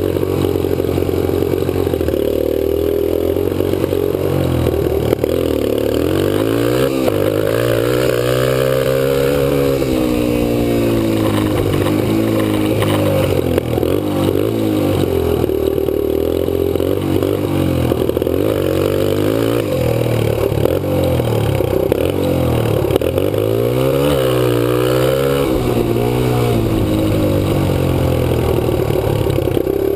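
Kawasaki KLX 125 dirt bike's single-cylinder four-stroke engine heard close up while riding, its pitch climbing and falling again and again as the throttle is opened and eased off through turns.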